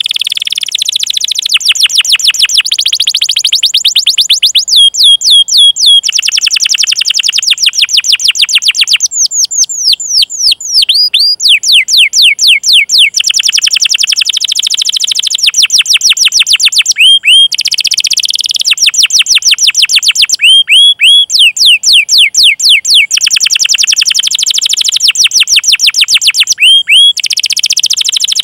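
Domestic canary singing a long song: rapid rolling trills of repeated notes alternating with short runs of clear, downward-sweeping 'cuit cuit' call notes.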